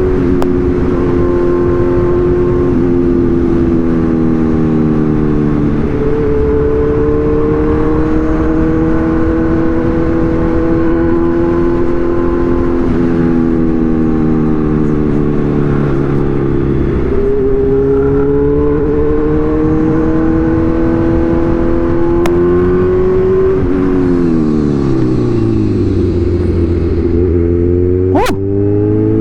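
Kawasaki Z1000 inline-four motorcycle engine under way, its note climbing and stepping back with throttle and gear changes. Near the end the revs fall steeply as it slows, then pick up again.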